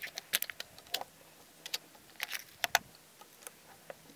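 Metallic clicks and clacks from an FX Impact MKII air rifle's action being worked by hand while it is loaded: a run of about ten irregular sharp clicks, two of them louder.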